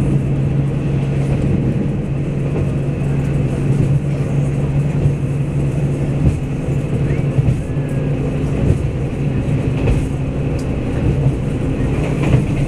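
Cabin sound of a DR2800 diesel multiple unit's powered car under way: a steady drone from the underfloor diesel engine over the rumble of wheels on rail. Heard from a seat some way from the engine, so the engine sounds fairly subdued.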